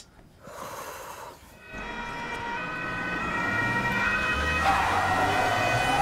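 Police car sirens wailing and growing louder as the cars approach, with the cars' engines joining in close by about four seconds in.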